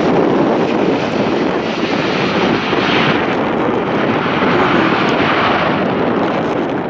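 Steady jet-engine noise from a Boeing 777-300 airliner as it touches down and rolls out on the runway, easing slightly toward the end.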